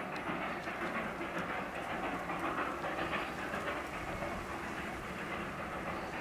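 Darjeeling Himalayan Railway 0-4-0 saddle-tank steam locomotive working its train far across the valley, heard as an even noise without a clear beat.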